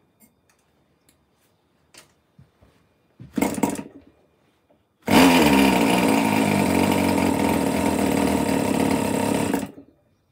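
MDS 40 two-stroke model glow engine being hand-started by flicking its propeller: a few light clicks, a brief burst of firing about three seconds in, then it catches at about five seconds, runs at a high, steady buzz for about four and a half seconds and cuts out abruptly. This is one of the false starts of an engine whose needle valve is badly adjusted.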